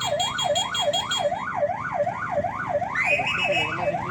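Electronic vehicle siren in a fast yelp, its pitch sweeping up and down about three times a second. A higher pulsing beep runs alongside it until about a second in, and a brief high warbling tone joins about three seconds in.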